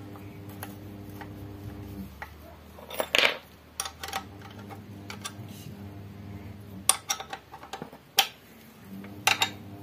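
Hand tools on a scooter's engine mounting bolt: a chrome socket and ratchet handle give a few separate metallic clicks and clanks, the loudest about three seconds in.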